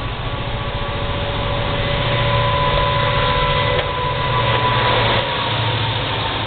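Norfolk Southern SD60E and Union Pacific SD70M diesel-electric locomotives, EMD 710 V16 engines, approaching and passing with a loud steady engine drone and a low throb. It grows louder about two seconds in as the units draw close. A thin steady whine sits above it.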